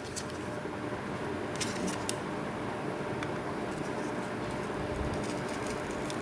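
Packaging of a RAM module being handled and opened: a few light clicks and faint rustling over a steady low hum.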